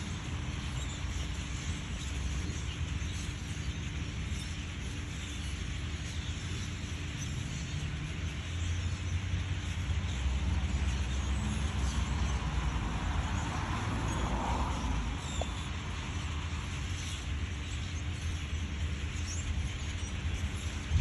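Steady low rumble of road traffic, with faint calls of a large flock of birds scattered through it.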